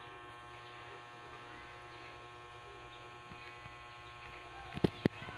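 Steady low electrical hum, then two sharp knocks close together near the end.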